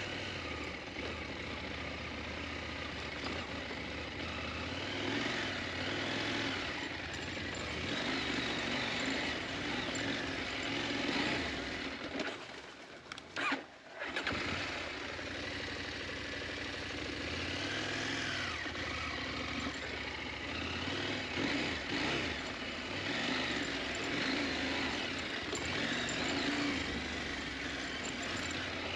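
KTM 890 Adventure parallel-twin engine running off-road, revving up and down unevenly. The sound drops away briefly about twelve seconds in, then picks up again.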